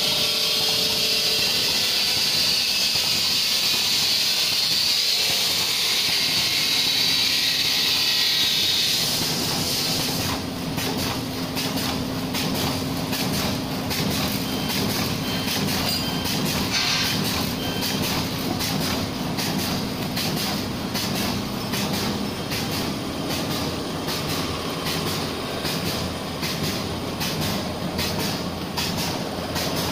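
Cold-cutting plastic bag-making machine running: a steady hiss for about the first nine seconds, then a fast, regular clacking of its mechanism over a low hum to the end.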